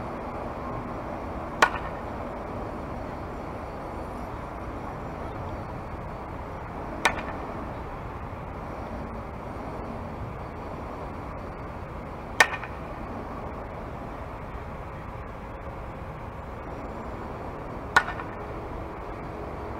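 Softball bat striking a pitched softball four times, a sharp crack about every five and a half seconds, over a steady background noise.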